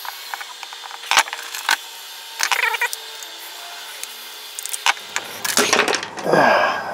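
Welded plastic case of a stun gun cracking and snapping as a large flat-blade screwdriver pries its seam apart: sharp separate cracks and clicks, with a quick cluster of them about two and a half seconds in. A short voice sound near the end.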